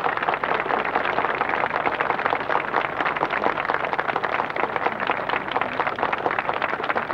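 Steady hubbub of a large crowd: many voices and claps blending into one dense noise.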